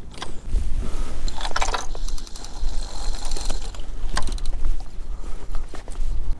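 Fishing reel being cranked hard against a hooked fish, its gears and drag ratcheting in clicking bursts, over a steady low rumble of wind on the microphone.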